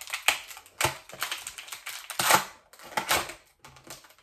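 A soap-sponge pouch being torn open and handled: irregular crinkling and crackling of the packaging, loudest about two seconds in.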